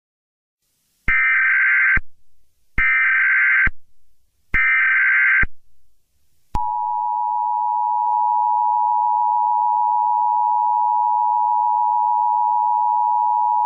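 Emergency Alert System signal: three short bursts of SAME header data tones, each under a second long, then from about six and a half seconds in the steady two-tone EAS attention signal.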